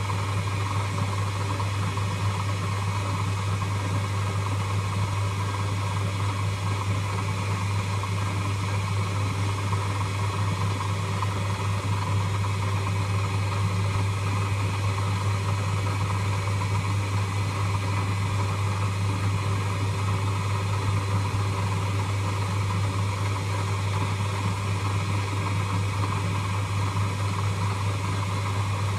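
Lathe running steadily: a constant motor hum with a strong low drone and a steady whir above it, unchanging throughout.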